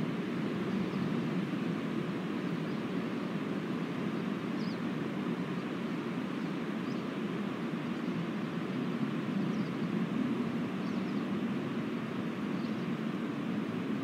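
Steady wind rushing through a conifer forest, an even noise with no lulls. A few faint high chirps sound now and then.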